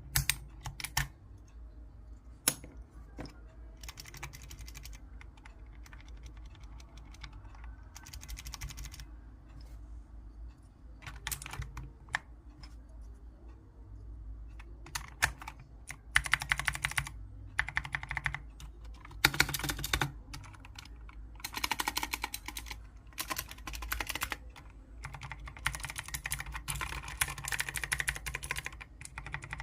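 Mechanical keyboard with clicky blue switches, seven years in use, being typed on in bursts of rapid clicks with short pauses between. The typing comes in scattered bursts at first and in longer, denser runs in the second half.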